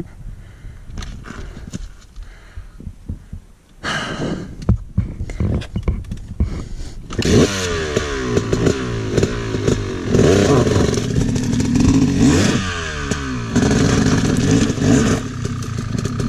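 Scattered knocks and clatter, then about seven seconds in a close two-stroke dirt bike engine, a Yamaha YZ250X single, comes in loud and is revved up and down repeatedly on a rocky climb.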